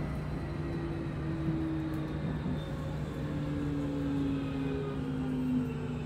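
Metro train heard from inside the car, slowing as it pulls into a station: the traction motors' whine falls steadily in pitch over a constant low hum and the rumble of the wheels on the track.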